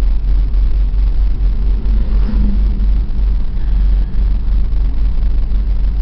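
Steady low rumble of a moving vehicle heard from inside its cab: engine and road noise with no let-up.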